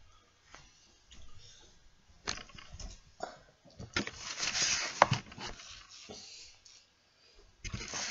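Handling noise close to a webcam's microphone: scattered clicks and knocks, a stretch of rustling with a sharp click about four to five seconds in, and louder knocks near the end.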